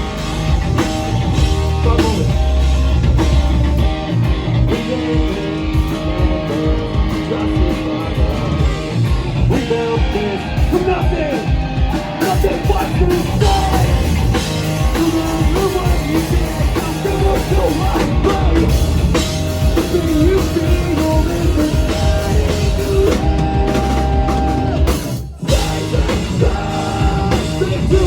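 Rock band playing live: drum kit, electric guitar and sung vocals, loud and dense, with a sudden brief break in the playing about 25 seconds in.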